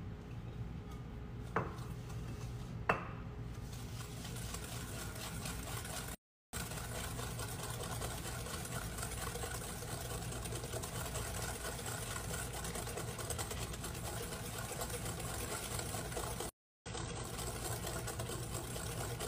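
Wire balloon whisk beating eggs and sugar in a glass bowl: a fast, steady rattle of the wires against the glass, which breaks off for a moment twice. Before the whisking starts, two sharp taps.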